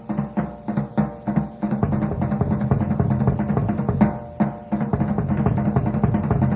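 Live rock drum kit solo on an old concert recording: separate drum strokes about three a second, breaking into fast continuous rolling around the kit about two seconds in.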